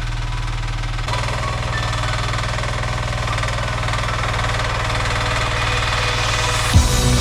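Mini excavator engine running with a fast, even pulse, picking up about a second in and growing louder and brighter. Music comes in near the end.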